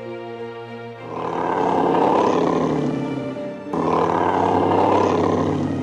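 A large animal roaring twice, over background music with held tones. The first long roar starts about a second in and swells, then fades. The second starts abruptly just before four seconds in and runs on near the end.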